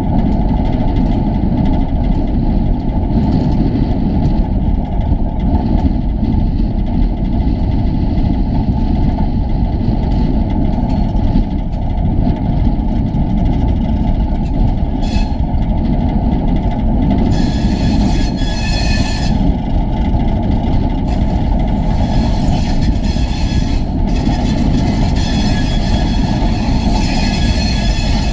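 TEM2 diesel shunting locomotive running, its six-cylinder diesel engine and wheels making a loud, steady low rumble. High-pitched wheel squeal comes in twice in the second half, about two-thirds of the way through and again near the end.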